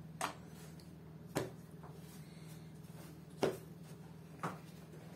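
Kitchen knife cutting a log of dough into pieces, the blade knocking on the wooden board four times, a second or two apart, over a faint steady hum.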